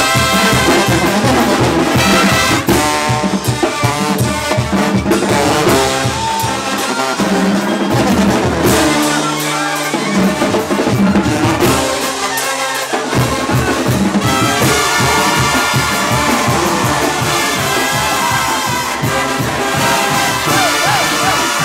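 Oaxacan brass band playing live: trumpets, trombones and sousaphones with drums. The bass and drums drop out for a few seconds around the middle, then the full band comes back in.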